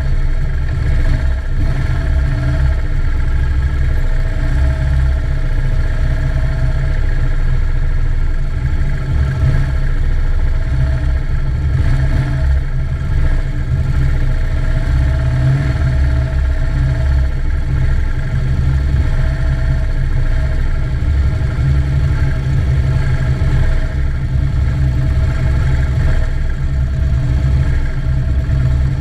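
Police motorcycle engine running steadily at a slow riding pace, heard close up from a camera mounted on the bike, with the engines of other escort motorcycles riding just ahead. Its note is steady and low.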